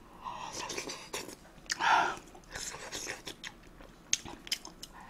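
Close-miked chewing and biting of a mouthful of kimchi fried rice: wet, irregular mouth sounds with scattered sharp little clicks, one louder burst about two seconds in.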